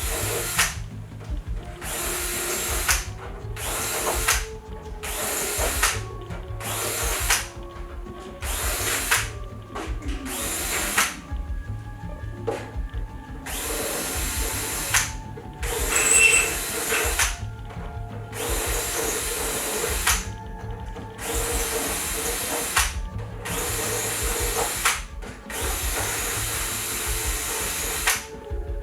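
Power drill run in about twenty short bursts, each half a second to two seconds long, with brief pauses between, as when deburring a series of holes. A low background music beat runs underneath.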